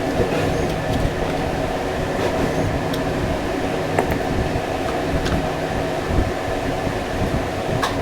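A steady mechanical hum, with a few light clicks.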